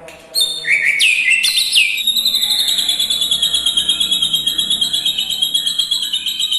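White-rumped shama (murai batu) singing: a few loud sliding whistled notes, then from about two seconds in a fast, steady trill of rapidly repeated notes.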